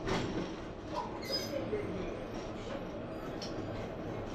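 Tram running, a steady rumbling rail noise, with a short knock at the start and a brief faint high tone about a second in.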